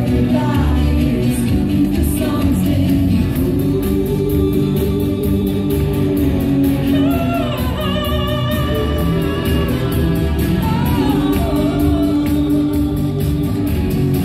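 A pop song performed live and amplified through stage speakers: singing over a steady beat, with a long wavering held note about halfway through.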